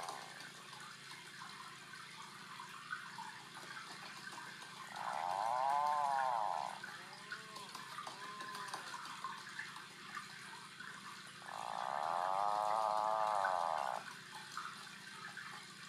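Tufted puffins calling. A drawn-out call comes about five seconds in, with a few faint short calls after it. Near the end comes a longer call of about two and a half seconds with a rapid purring flutter. Each call rises and then falls in pitch.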